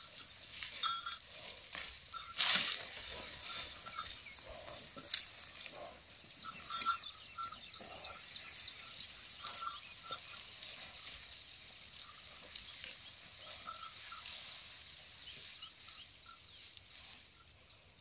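A pair of bullocks pulling a wooden plough through a sugarcane field: rustling of cane leaves, hooves and the ploughshare scraping through soil, with small ticks and crackles throughout. A louder short rush about two and a half seconds in.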